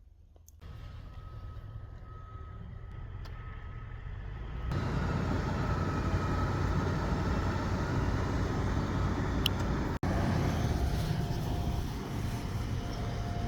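A motor vehicle's engine running steadily with a low rumble and a faint steady whine. The sound jumps up in level about half a second in and again about five seconds in, with a brief dropout near ten seconds.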